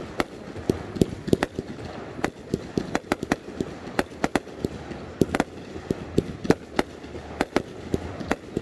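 Fireworks firing in quick succession from a consumer cake: a string of sharp bangs and pops, a few each second at uneven spacing, as shots launch and burst overhead.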